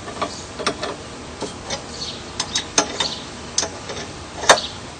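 Irregular light metallic clicks and clinks from the bolts of a chainsaw mill's bar clamp being tightened by hand, the sharpest clink about four and a half seconds in.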